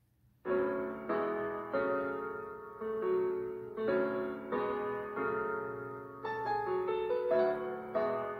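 Piano-led keyboard music: chords struck on a slow, even beat, one roughly every two-thirds of a second, each ringing and fading before the next, starting about half a second in.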